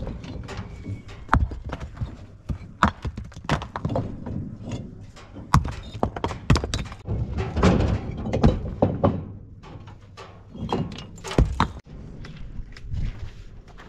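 Rough building stones being unloaded from a pickup truck's bed by hand: irregular thuds as they land on dirt ground, with knocks of stone against stone.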